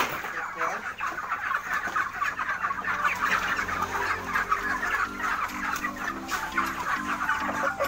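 A crowded flock of white broiler chickens clucking and chattering all together. Background music comes in about halfway through.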